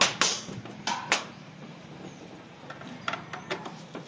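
Handling noise: four sharp knocks and clatters in the first second or so, then a few fainter taps near the end.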